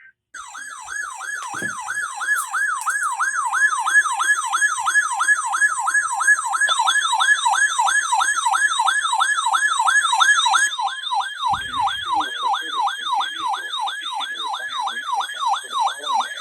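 Electronic siren sounding a rapid yelp: a tone sweeping up and falling again about three times a second. A steady tone runs beneath it for a few seconds in the middle.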